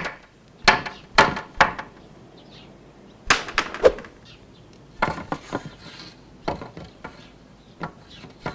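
Wooden knocks and clunks: a dozen or so sharp hits at irregular spacing, some in quick clusters of two or three.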